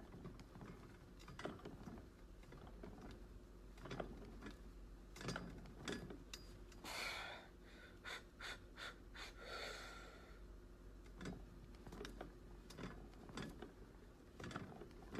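Quiet gym room sound with a steady low hum, scattered light clicks and knocks, and two short breathy exhales from the lifter around the middle.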